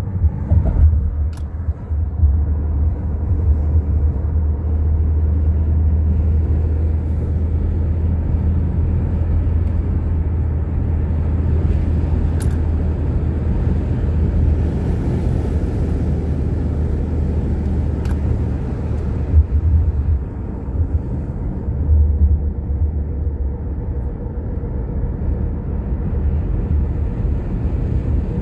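Car driving along a road, heard from inside the cabin: a steady low rumble of tyres and engine, with a brief rush of hiss about halfway through.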